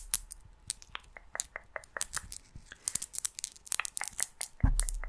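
Fingertips scratching and rubbing a foam microphone windscreen close up: a dense run of crackly scratches, with a low thump near the end.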